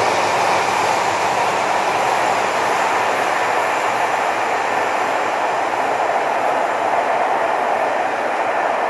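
A freight train of open coal wagons running away from the listener just after its last wagon has passed, giving a steady wheel-on-rail noise that slowly fades.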